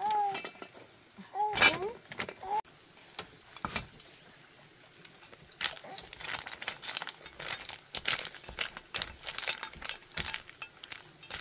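A few short, arching high-pitched voice sounds in the first couple of seconds, then from about halfway a rapid, irregular run of clicks and clattering.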